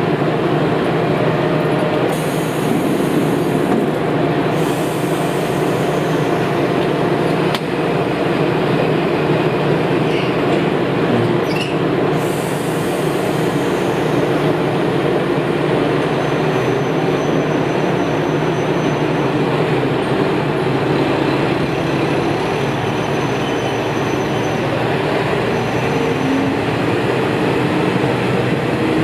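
Diesel railcars' engines idling steadily close by, with several spells of hissing air, about two, five and twelve seconds in, as the cars are uncoupled.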